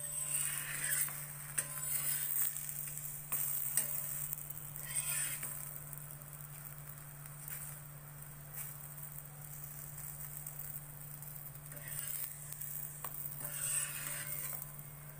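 Puran poli sizzling lightly in ghee on an iron tawa, with a flat spatula pressing and scraping across it every few seconds. A steady low hum runs underneath.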